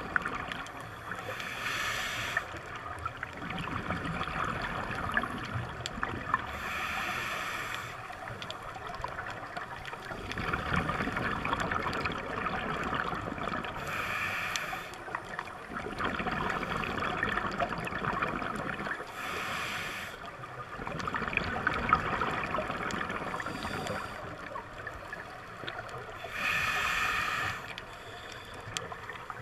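Scuba diver breathing through a regulator underwater: five hissing inhalations through the demand valve, one every 5 to 7 seconds, each followed by a long stretch of crackling, gurgling exhaled bubbles.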